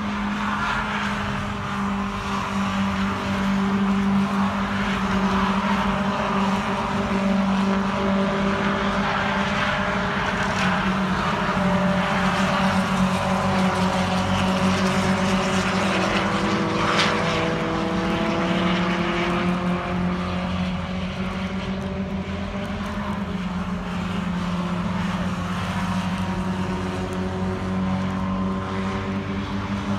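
Racing car engines running on a circuit, several engine notes rising and falling in pitch as the cars accelerate and pass, over a steady low drone.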